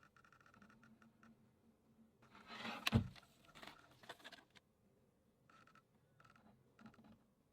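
Small plastic clicks, scrapes and patters of an Apple keyboard being handled, with a short rustle and one sharp knock about three seconds in.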